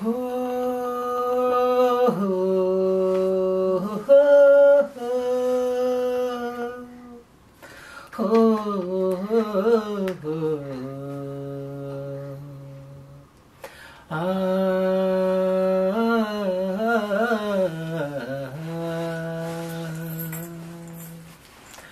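A person humming a slow tune with no words, in three long phrases of held and gliding notes with short pauses between them.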